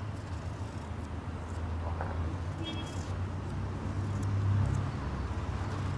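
Low, steady rumble of a motor vehicle engine running, swelling slightly about four seconds in, with faint scrapes and clicks of a small knife peeling potatoes.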